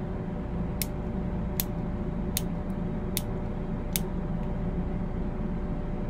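Uberti 1875 Outlaw single-action revolver clicking as its cylinder is turned through the chambers while the gun is checked to be unloaded. Five sharp clicks come evenly, a little under a second apart, over a steady low hum.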